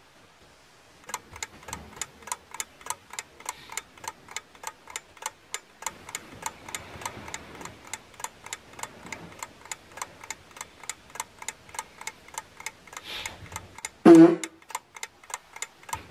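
A clock ticking steadily, about three ticks a second, starting about a second in. About fourteen seconds in, a brief loud voice-like sound cuts across the ticking.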